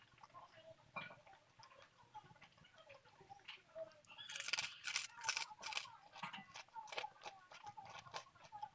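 Close-up eating sounds: chewing with small clicks, then a run of loud, crisp crunches about halfway through as something crunchy is bitten and chewed.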